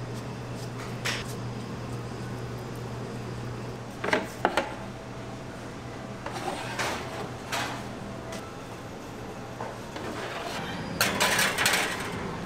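Kitchen handling sounds of metal baking trays: scattered knocks and clicks over a steady low electrical hum, with a sharp pair of knocks about four seconds in. Near the end, a louder scraping rattle as trays are slid onto metal oven racks.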